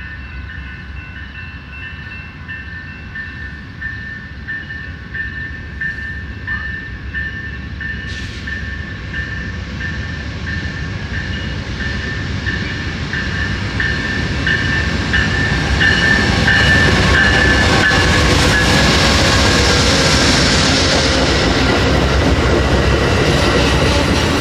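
Amtrak passenger train led by two GE P42DC diesel locomotives arriving at a station, its rumble growing steadily louder and peaking about two-thirds in as the locomotives pass, then the bilevel cars rolling by with a hiss of wheels and brakes. A bell rings at an even beat through the approach and is lost in the train's noise as it arrives.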